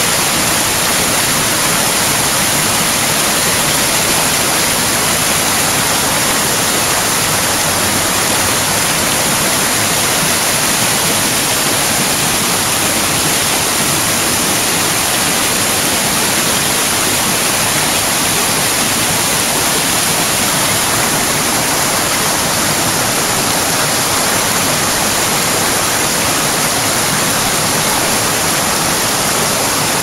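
Stream water rushing over rocks: a steady, loud, unbroken rush.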